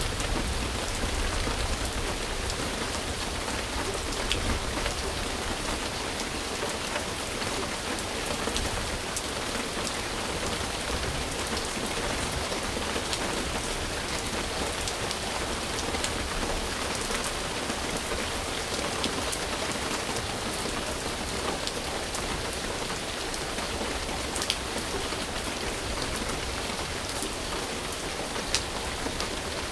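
Steady rain falling, an even hiss of rain on a surface with scattered individual drops ticking.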